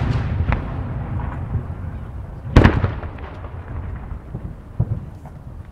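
Aerial firework shells, No. 5 (about 15 cm) shells, bursting: the rolling echo of a heavy boom, a sharp crack about half a second in, a second heavy boom about two and a half seconds in with its own long rumble, and another crack near the end.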